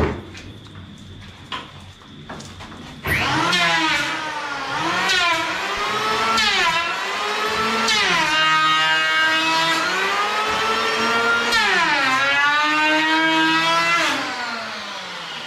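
Corded electric hand planer starting about three seconds in and cutting along the edge of a wooden cabinet frame. Its motor whine repeatedly dips and climbs in pitch as the blade bites into the wood and frees, then winds down near the end. A few light knocks come before it starts.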